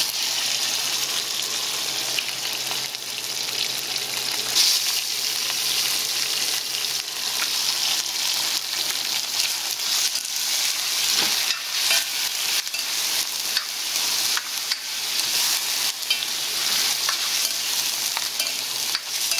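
Raw chicken pieces sizzling loudly in hot oil in a stainless steel pot, the sizzle starting as the chicken goes in. In the second half a spoon stirs them, with scattered knocks and scrapes of the spoon against the pot.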